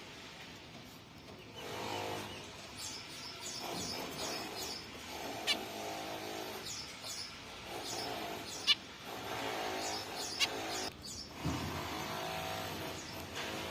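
Zebra finches calling: repeated nasal, buzzy calls with short high chirps mixed in, and a few sharp ticks.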